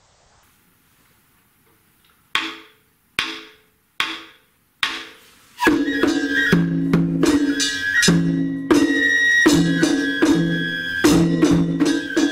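Japanese festival music (matsuri bayashi) for drums and flute. After a short quiet, four evenly spaced strikes set the beat, and about halfway through the full ensemble comes in with rapid drumming under steady held notes.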